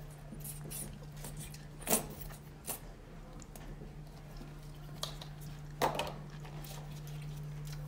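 A few light clicks and knocks from art supplies being handled, the last as acrylic paint tubes are picked up, over a steady low hum.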